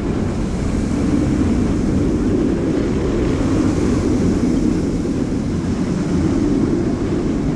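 Steel roller coaster train (Jurassic World VelociCoaster) rumbling steadily along its track.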